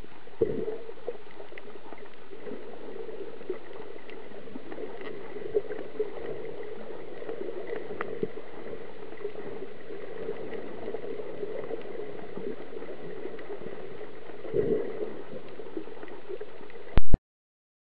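Steady muffled underwater noise picked up by a camera held under the sea, with scattered faint clicks and a couple of low thumps. A short loud pop comes near the end, and the sound then cuts out.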